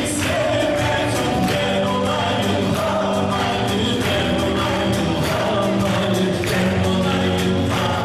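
A male singer sings into a handheld microphone over a live acoustic band, with piano, guitars and a hand drum keeping a steady beat.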